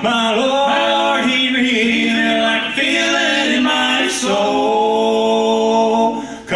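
Live bluegrass gospel band: male voices singing long held notes in close harmony, over banjo, acoustic guitar and upright bass.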